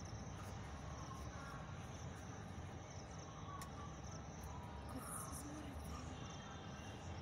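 Outdoor ambience of insects trilling steadily, over a low rumble.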